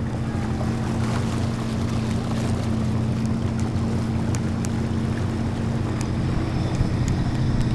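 Jet ski engine running steadily at cruising speed, a constant low drone with the rush of wind and water.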